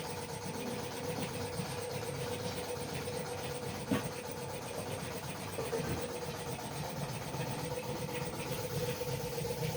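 Steady mechanical hum of a running engine or motor, holding one even pitch, with a single sharp knock about four seconds in.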